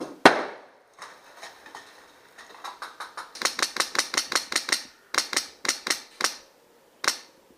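Airsoft guns firing: one sharp shot just after the start, then a rapid string of shots at about six or seven a second, followed by a handful of separate shots.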